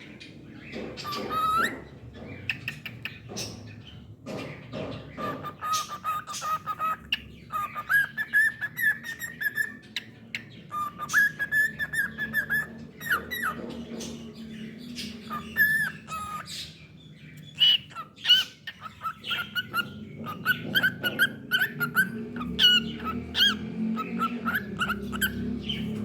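Cockatiel whistling and chirping: held whistled notes, some rising at their start, between short chirps, with many sharp clicks throughout.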